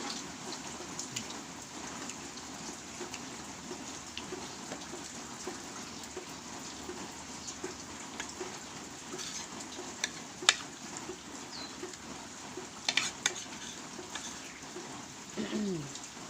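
Steady rain hiss, with scattered sharp clinks of spoons and dishes; the loudest come about ten and thirteen seconds in.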